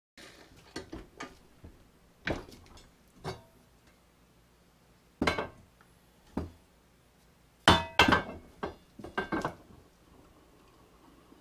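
Metal parts of an old wood lathe being handled and knocked together: about a dozen sharp clanks and clinks at uneven intervals, the loudest pair about eight seconds in.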